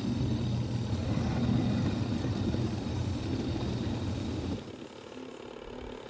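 Mini portable washing machine running a wash: a steady motor hum under the sloshing churn of soapy water in the tub. The sound drops to a quieter level about four and a half seconds in.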